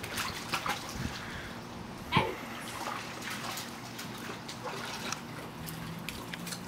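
Water splashing and sloshing in a plastic kiddie pool as a Siberian husky puppy plays in it, with scattered small splashes and one short vocal cry about two seconds in.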